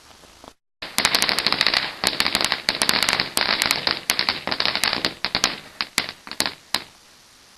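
A firework crackling: a fast, dense run of sharp cracks and pops starting about a second in, thinning to scattered single cracks and stopping near the end.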